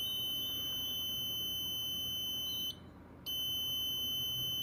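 Breadboard motion-alarm buzzer sounding a steady high-pitched tone, triggered by a PIR sensor detecting a hand waving over it. About two and a half seconds in it cuts out for half a second, then sounds again as motion is detected again.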